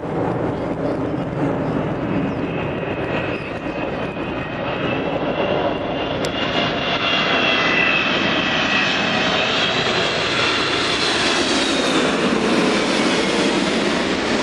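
Jet airliner's engines passing: a steady rush with a high whine that shifts slightly in pitch and grows louder through the second half.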